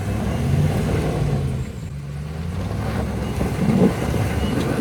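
Pickup truck engine revving under load during a kinetic-rope recovery of a high-centered 4x4. It builds up, eases off about two seconds in, then builds again.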